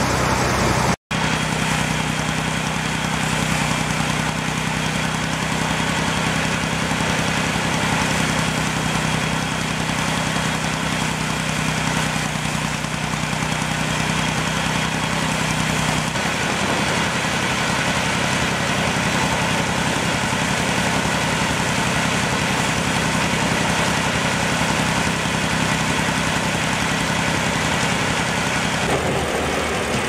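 Tractor-driven paddy thresher running steadily, the tractor's engine droning as it drives the threshing drum while rice bundles are fed in. There is a very short break about a second in, and the tone shifts about halfway through.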